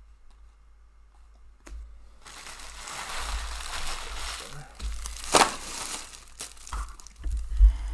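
Packaging wrapper being crumpled and handled, starting about two seconds in, with a sharp crackle midway and a few low thumps near the end.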